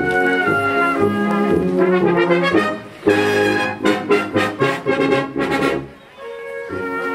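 A full brass band playing a march: held chords, then a run of short, loud accented chords in the middle, a brief drop just before the end, and held chords again.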